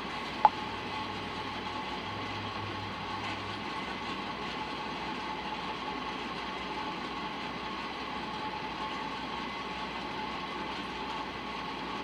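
Steady background hum with two faint constant tones, and a single short beep about half a second in.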